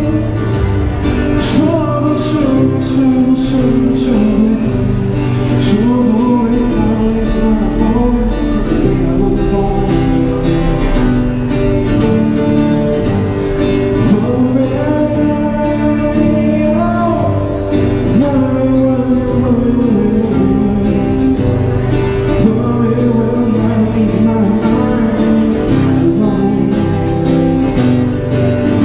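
A man singing with his own strummed acoustic guitar, voice and guitar amplified through a small battery-powered busking amp (Roland Cube Street EX).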